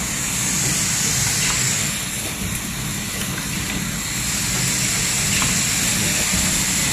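Coil roofing nail making machine running at high speed: a steady mechanical whir with a bright high hiss over a low hum.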